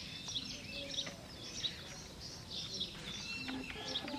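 Small birds chirping and twittering: a busy run of short, high calls over steady background noise.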